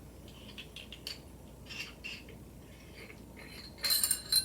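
Metal hiking-pole multitool being twisted open at its bottom section: scattered small clicks and scrapes of handling, then a louder metallic scraping rattle near the end.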